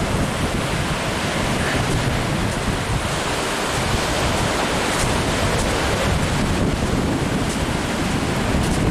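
Gulf of Mexico surf washing on the beach, mixed with steady wind buffeting the microphone.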